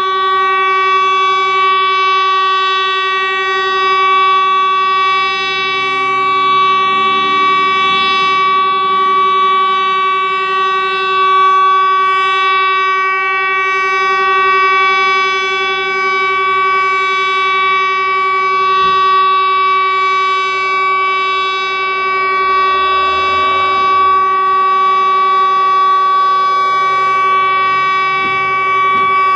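Tesla UEAJ electronic siren on a rooftop, its horn loudspeakers sounding one steady tone that holds without rising or falling: the continuous test tone of the regular siren test.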